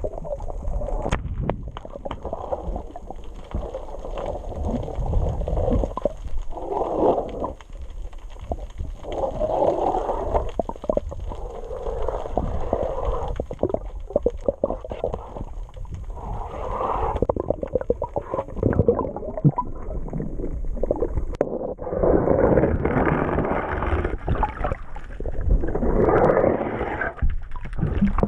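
Water sloshing and gurgling against a boat hull in uneven swells, with scattered knocks, growing louder near the end.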